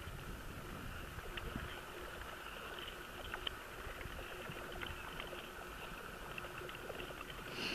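Ice skates gliding and scraping over smooth lake ice, a steady faint hiss with scattered small ticks, over a low wind rumble.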